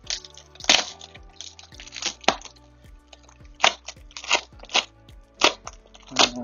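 Irregular sharp crackles and crunches of packaging being handled during an unboxing, over steady background music.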